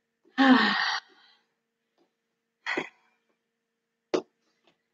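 A woman's hard exhale after high-intensity exercise: a short voiced sigh that trails off into breath. Two brief breathy puffs follow, about a second and a half apart.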